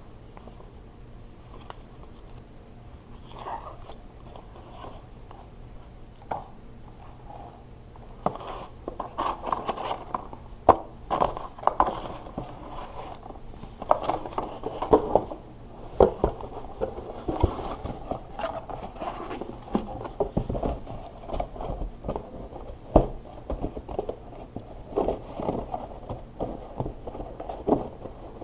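Cardboard box and packaging being handled while unpacking a device: irregular rustling and scraping with scattered knocks and clicks. It is sparse at first and becomes busy from about eight seconds in.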